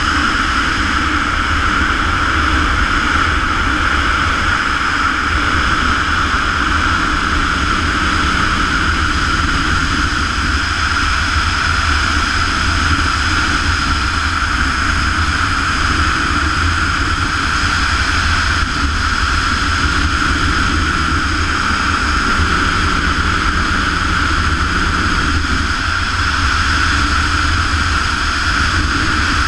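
Steady, loud rush of air over a GoPro camera's microphone during wingsuit flight, an unbroken wind roar with no change in pitch or strength.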